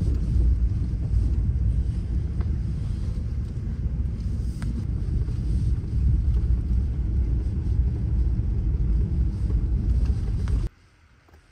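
Steady low rumble of a vehicle driving over a rough, snow- and slush-covered forest road, heard from inside the cabin. It stops abruptly near the end.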